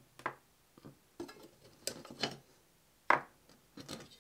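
Small corroded metal parts of a stripped-down G10 air pistol being picked up and set down on a wooden workbench: a string of separate knocks and clinks, the loudest a little after three seconds in.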